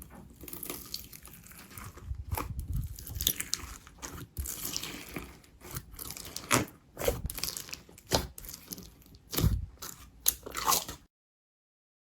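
Slime being squeezed and poked by hand, giving irregular sticky crackles and pops that stop abruptly near the end.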